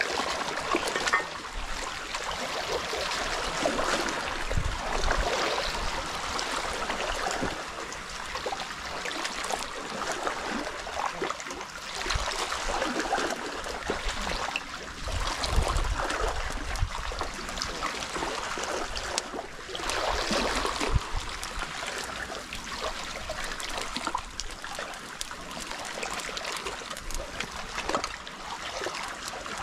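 Small sea waves washing over the shoreline rocks and trickling back off them, swelling and fading every few seconds.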